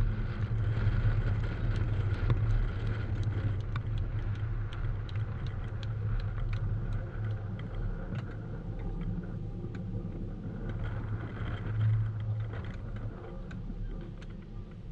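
Steady low outdoor rumble with faint, scattered ticks of tennis balls being struck and bouncing on the surrounding courts.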